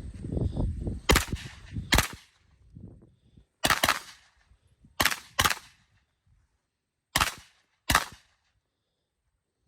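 Firearm shots fired one at a time, about seven in all at uneven intervals.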